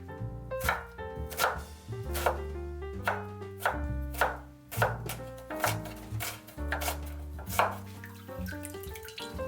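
Kitchen knife chopping vegetables on a cutting board, a sharp knock roughly every second, steady and unhurried. Soft background music plays underneath.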